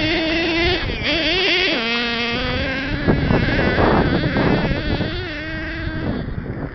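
Kyosho Giga Crusher radio-controlled monster truck's small nitro engine buzzing at high revs, its pitch rising and falling repeatedly as the throttle is worked while the truck drives and slides on gravel and sand. It grows a little quieter near the end as the truck drives farther off.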